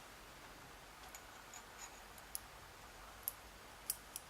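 Faint, irregular small metallic clicks from the plug of a Yale Azbe HS-7 dimple lock cylinder being turned and worked out of its housing as the lock is gutted. The clicks come singly, a few tenths of a second to a second apart, the sharpest a little before the end.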